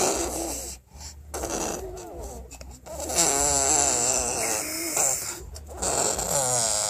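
A person making buzzing, snore-like noises with the mouth. The sound is voiced, and its pitch wobbles quickly up and down. The longest and loudest stretch comes about midway, with a shorter one near the end.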